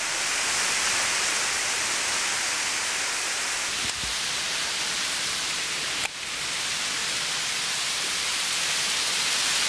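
Steady hiss of water pouring from a small waterfall, an even rushing noise that dips briefly about four and again about six seconds in.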